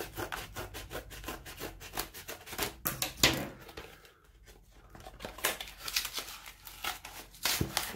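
Stiff cardboard mailer being forced open by hand: a string of short crackles, scrapes and tearing sounds of cardboard and packing tape, with one sharp crack about three seconds in.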